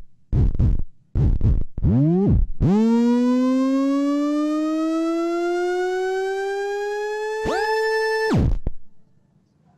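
Synthesized electronic sound design: a few short, deep pulses, then a buzzy synth tone swoops in and holds, slowly rising in pitch for about five seconds. A higher tone joins it near the end, and the sound cuts off sharply.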